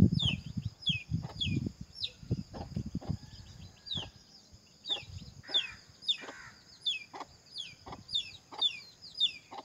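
A bird calls over and over, a short falling note about twice a second, pausing briefly near the middle, over a steady high-pitched buzz. In the first few seconds, wind gusts rumble on the microphone.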